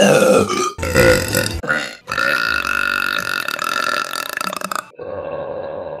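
Women burping loudly, one after another: a few short burps in the first two seconds, then a long drawn-out burp of nearly three seconds, then another, steadier burp starting about five seconds in.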